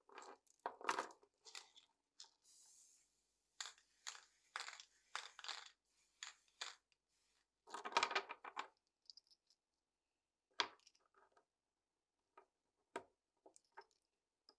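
Metal machine-gun ammunition belt clinking and clattering as it is handled and laid out on a wooden bench, followed by a few sparse clicks as cartridges are pushed into its loops near the end.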